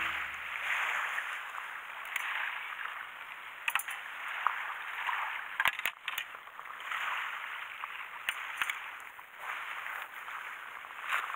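Waves washing on the shore, swelling and easing every couple of seconds, with a few sharp clicks and clinks in between.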